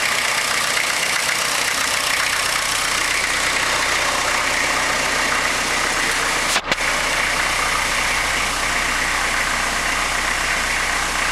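Fiat Uno's petrol engine idling steadily, with a brief dropout in the sound about six and a half seconds in.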